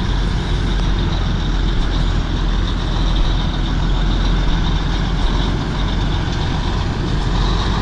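Old Mack truck's diesel engine running steadily as it pulls in slowly, hauling a loaded lowboy trailer.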